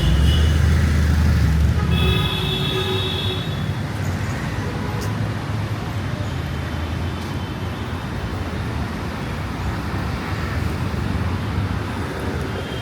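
Busy street traffic: a motor vehicle's engine rumbles past close by in the first two seconds, a horn honks once about two seconds in, then steady traffic noise.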